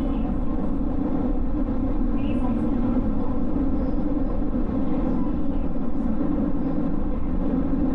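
JR West 221 series electric train running between stations, a steady rumble of wheels and running gear heard from inside the car.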